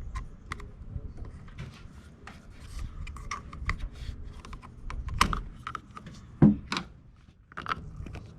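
Light clicks, taps and scrapes of a plastic strainer screen being worked out of the brake master cylinder reservoir, with a sharper knock about six and a half seconds in.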